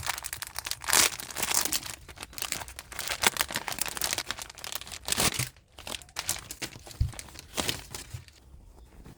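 Plastic packaging crinkling and tearing as products are unwrapped by hand, a dense run of crackles that thins out near the end.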